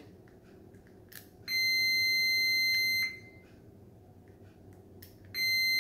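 Digital multimeter's continuity beeper sounding twice, a steady high beep of about a second and a half each time, each just after a short click. The relay's contacts between terminals 30 and 87 close as it is energized and show continuity.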